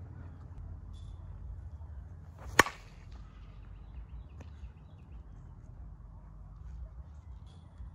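A Short Porch Salty Dog USSSA bat hits a ball once, about two and a half seconds in: a single sharp crack with a brief ring after it.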